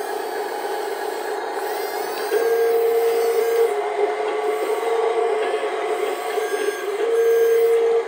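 Small electric motors and plastic gearboxes of radio-controlled toy construction vehicles whining steadily as they drive and tip. The whine gets louder twice, about two and a half seconds in and again near the end.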